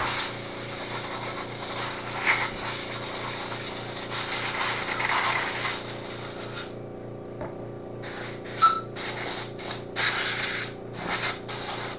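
Compressed-air blowgun blowing dust and debris off a chainsaw: one long continuous hiss of about six and a half seconds, then a run of short blasts. Under it an air compressor runs with a steady, slowly pulsing hum.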